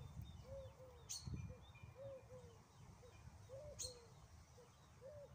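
Faint outdoor birdsong: a dove cooing, a low phrase of arched notes repeated over and over, with small birds chirping higher above it. Two sharp clicks sound, about a second in and again a little before four seconds.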